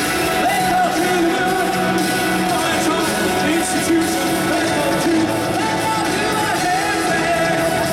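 Live synth-pop band playing, with a male lead singer's voice over keyboards and drums, heard from among the audience in a concert hall.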